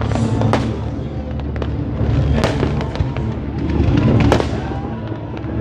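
Fireworks bursting overhead: several sharp bangs over a continuous low rumble and crackle of many shells going off.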